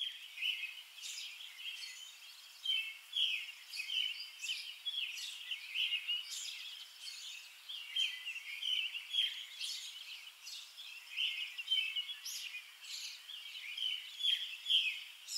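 Songbirds chirping and singing: a busy chorus of many short, overlapping chirps.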